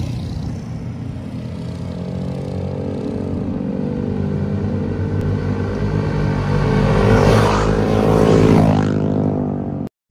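A group of motorcycles riding past. The engines grow louder as they approach, then drop in pitch as they go by about eight to nine seconds in. The sound cuts off abruptly just before the end.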